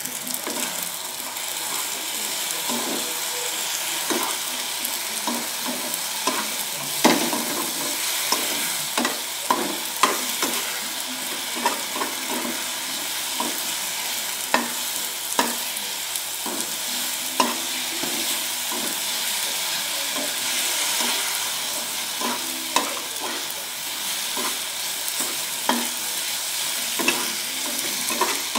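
Sausage pieces sizzling steadily as they fry in a frying pan. A spatula scrapes and knocks against the pan at irregular intervals, about once a second, as they are stirred.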